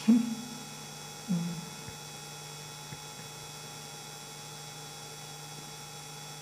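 Steady electrical mains hum from the microphone and sound system, with two brief vocal sounds in the first two seconds.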